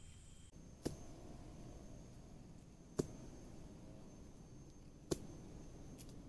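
Three sharp chopping strikes on wood, about two seconds apart.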